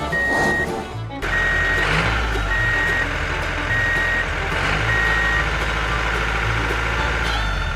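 Vehicle reversing alarm beeping five times at an even pace, about one beep every 1.2 seconds, over a steady low engine rumble.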